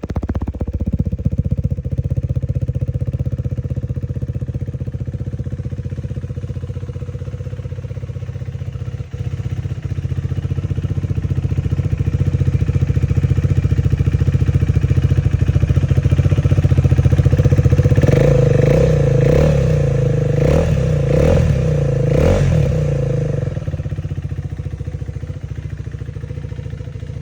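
KTM 390 Adventure's single-cylinder engine idling through an aftermarket exhaust with the dB killer removed, then revved in about five quick throttle blips around 18 to 23 seconds in before it settles back to idle.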